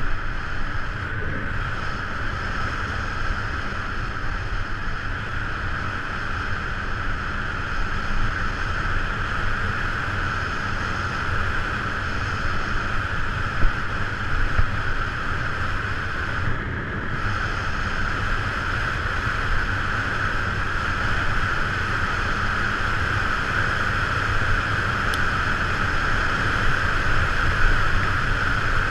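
Steady rush of wind over a moving camera's microphone, with low rumble of tyres rolling on asphalt and a strong hiss.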